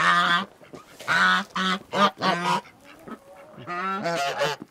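Domestic geese honking in about five loud bouts of calls, the longest near the end.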